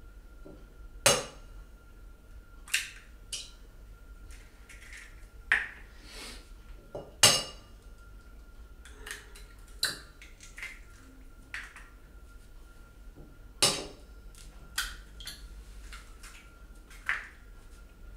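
Kitchenware handled on a worktop: a glass and crockery clinked and set down, a dozen or so sharp knocks and clinks at irregular intervals. A faint thin steady tone sits under them throughout.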